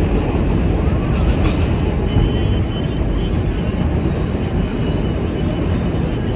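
Train running with a loud, steady rumble, with a faint high squeal about two seconds in.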